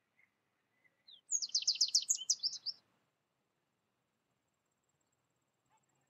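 A goldfinch singing one quick twittering phrase of about ten rapid high notes, lasting about a second and a half and starting about a second in.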